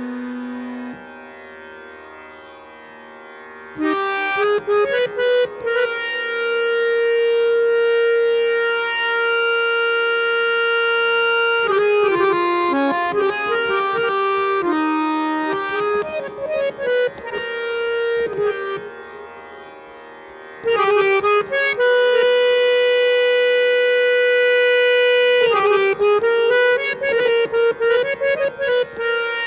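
Harmonium playing solo in Raag Charukeshi. Long held notes alternate with quick ornamented runs, and the first few seconds are softer before the playing swells about four seconds in.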